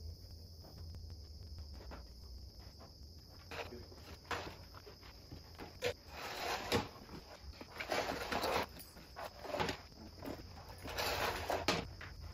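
Footsteps and scuffing on a packed dirt floor, irregular and growing louder and busier about halfway through.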